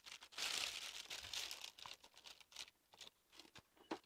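Faint crinkling and rustling of packaging as a graphics card is taken out of its box. It is densest in the first two seconds, then thins to a few light clicks and rustles.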